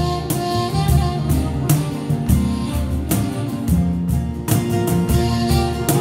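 Live acoustic ensemble music: steadily strummed plucked strings over a deep bass line, with a held melodic line above.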